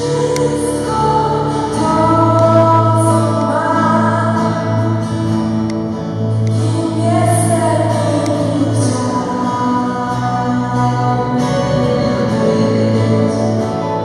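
A live worship song: a woman sings the melody over sustained keyboard chords and a strummed small string instrument.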